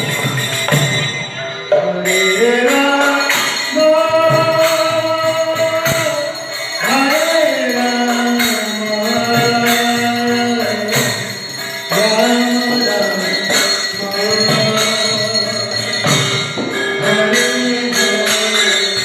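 A devotional song: a singer's long, held notes bending in pitch over a steady percussion rhythm.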